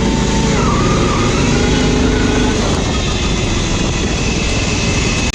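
Riding lawn mower engine running steadily, loud and close.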